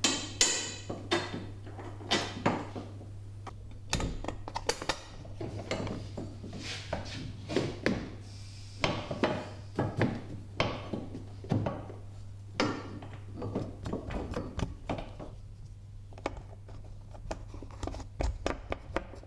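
Irregular knocks and clinks of metal parts and hand tools as a golf cart's rear roof support is set against the seat bracket and its lower bolts are started, over a steady low hum.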